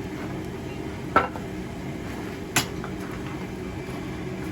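Two metallic clanks about a second and a half apart, the second sharper and ringing, over a steady low machine hum in a blacksmith's shop.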